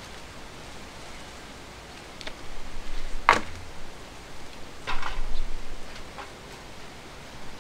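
A few brief handling noises over faint outdoor background: a sharp tap about three seconds in and a short crackle about five seconds in, as a person moves about holding a plastic bottle.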